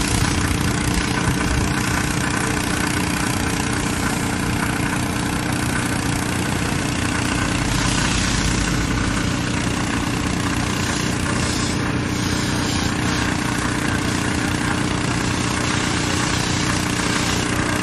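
An engine running steadily under a constant rushing hiss, with a low hum.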